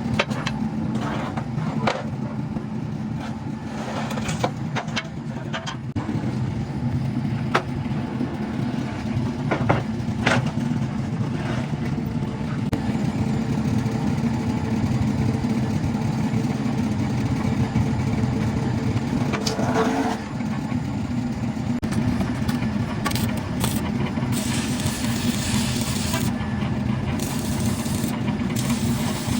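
An engine running steadily, with scattered sharp knocks in the first part. About two-thirds of the way through, short hissing bursts start and repeat.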